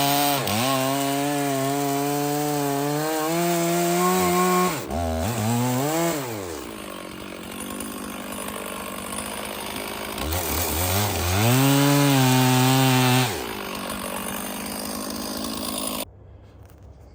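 Stihl two-stroke chainsaw cutting seasoned oak firewood at full throttle, its note sagging now and then under load. It drops to idle about six seconds in, revs up again for about three seconds, then idles and cuts off suddenly near the end.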